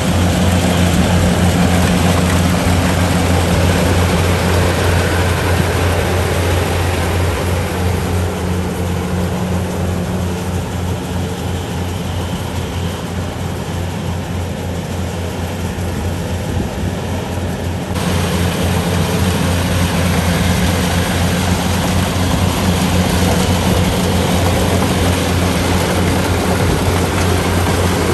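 Kubota DC-70 combine harvester running, its three-cylinder turbocharged diesel engine giving a steady deep hum. The sound eases off through the middle and comes back up suddenly about two-thirds of the way in.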